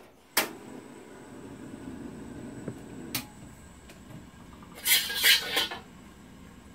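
Gas stove burner being lit under an empty wok: a sharp ignition click, then the flame's steady low rush. About five seconds in, the metal spatula rattles and scrapes against the wok as the pan is handled.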